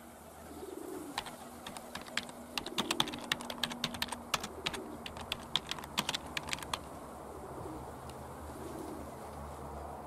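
Domestic pigeons cooing, low soft coos every couple of seconds, over a fast irregular run of sharp clicks that stops about seven seconds in.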